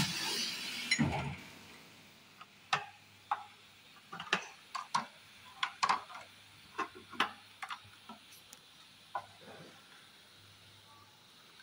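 A hiss that fades away over the first second or so, then irregular light clicks and taps of thin clear plastic blister trays being picked up and handled.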